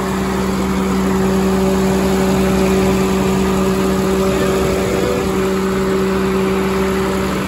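Caterpillar 3126 inline-six diesel engine with mechanical unit injectors, idling steadily with a constant low hum.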